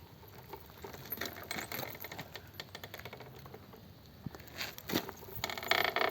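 Apollo RXF pit bike creaking and clicking from somewhere around its shock absorber: a run of irregular ticks, with a louder creak near the end. It is an unexplained squeak whose cause the owner cannot find.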